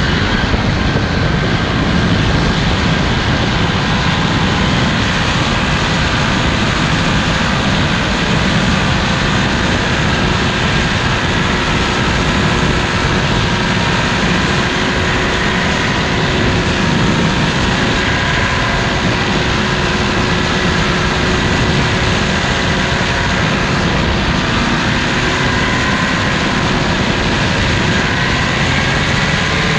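Paramotor engine and propeller running at a steady throttle in flight: a constant loud drone with a few held tones, over a dense rush of air noise.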